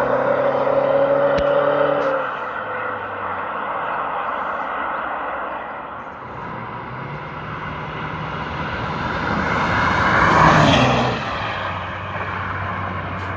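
Exhaust of a BMW E92 320d's four-cylinder diesel. The revs are held steady for about two seconds, then drop away. The sound swells again to its loudest about ten seconds in and falls back sharply.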